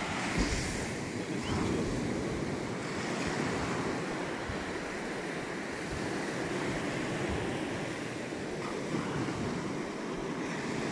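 Sea surf washing up a sandy beach in a steady rush, with gusty wind rumbling on the microphone.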